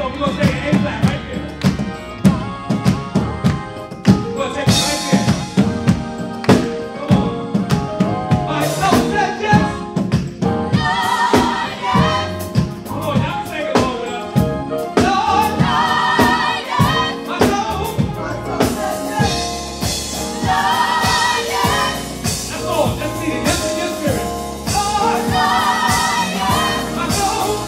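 Gospel vocal group singing live, a lead singer with backing voices, over keyboard and a drum kit keeping a steady beat. The voices grow fuller about ten seconds in.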